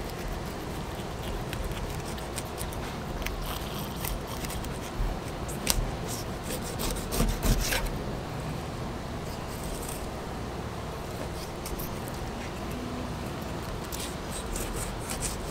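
Fillet knife slicing along a glasseye snapper, with soft scrapes and a few light clicks of the blade against the flesh and the plastic cutting board, over a steady background hiss.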